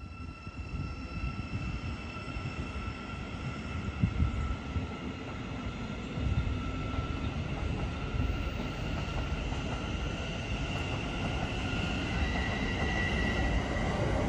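Great Northern Class 717 electric multiple unit approaching and pulling into the platform, growing steadily louder, with a steady high whine over the rumble of the wheels. A brief knock comes about four seconds in.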